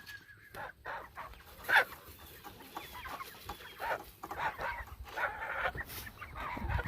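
Chickens clucking in a flock as they are given scratch feed, with scattered short calls and one louder call about two seconds in.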